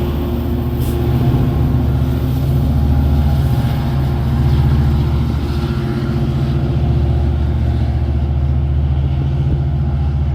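A large engine running steadily close by: a loud, low, even drone.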